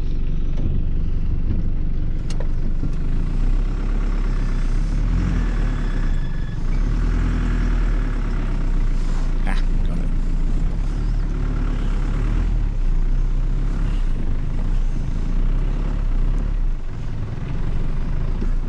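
Ute's engine running as it drives across soft, muddy ground, heard from inside the cab as a steady low rumble. A couple of sharp clicks or knocks come through, one a couple of seconds in and one about halfway.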